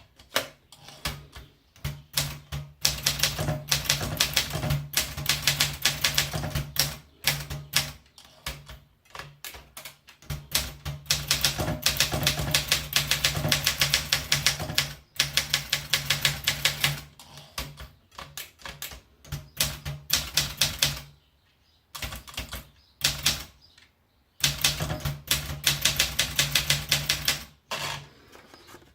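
Olympia SM9 manual portable typewriter being typed on: rapid runs of key and typebar strikes, several a second, broken by short pauses.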